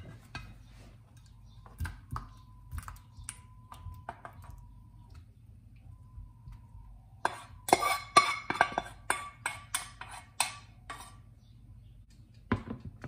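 Utensil scraping and clinking against a pan as a thickened sweet potato mixture is emptied into a baking tray. A few light knocks come first, then a busy run of sharp metallic scrapes and clinks from about seven to eleven seconds in, and one more knock near the end.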